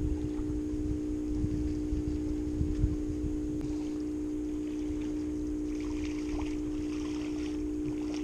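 Steady low hum from the fishing boat's motor, with wind rumbling on the microphone in gusts over the first few seconds.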